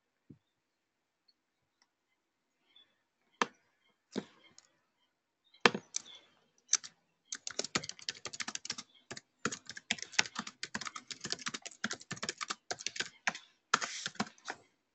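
Typing on a computer keyboard. A few separate key clicks come first, then a fast, continuous run of keystrokes from about halfway through, as a short line of text is typed.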